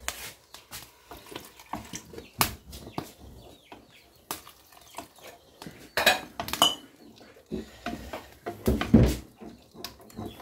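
Wooden spoon stirring thick cornmeal porridge in a large aluminium pot, knocking and scraping against the pot's sides in irregular clicks. A heavier thump comes near the end.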